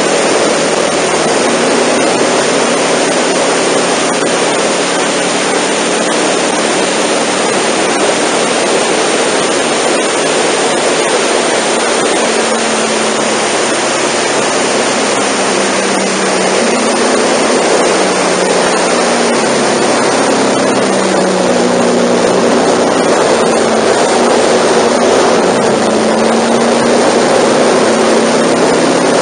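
Honda NC700 motorcycle's 670 cc parallel-twin engine running at expressway speed under a loud, steady rush of wind and road noise. The engine note drifts up and down with speed changes.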